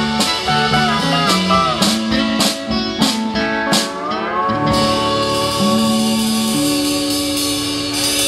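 Song's instrumental close: a lead guitar plays bent notes that glide up in pitch, over stepping low notes, and settles into long held notes in the second half.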